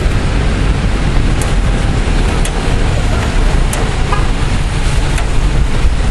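Heavy thunderstorm rain pouring steadily, with wind rumbling on the microphone and a few scattered sharp ticks of drops striking close by.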